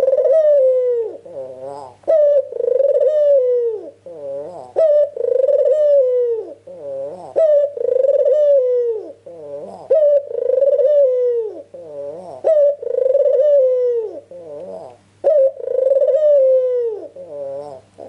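White Barbary dove (puter) cooing in its full song: a loud, long falling coo followed by a run of shorter rolling notes, the phrase repeated seven times at an even pace of about one every two and a half seconds.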